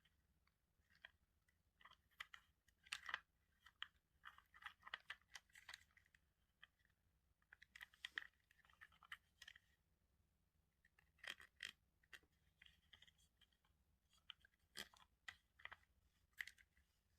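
Faint, irregular light clicks and short scratchy rustles of small plastic toy pieces and their packaging being handled, in scattered clusters with short pauses between them.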